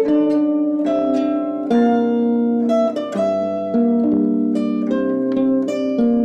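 Concert zither being played: a plucked melody over chords and bass notes, each note ringing on as the next is struck.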